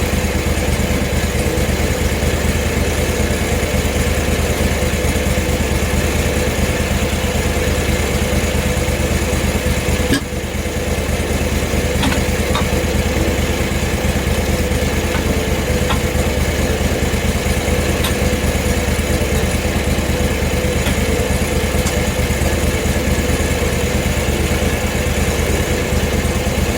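Portable bandsaw sawmill's gasoline engine running steadily, with a brief drop in level about ten seconds in.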